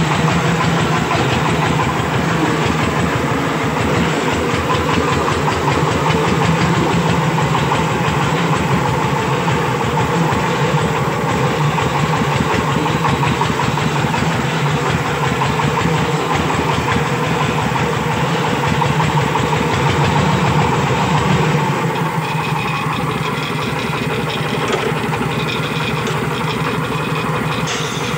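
Single-cylinder diesel engine of a công nông farm truck chugging steadily under way. About three quarters of the way through it runs a little quieter.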